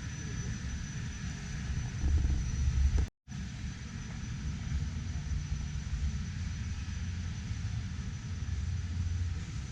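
Steady low rumble of a large exhibition hall's background noise, with a thin high steady tone over it. It swells about two seconds in, then cuts out for an instant just after three seconds before resuming.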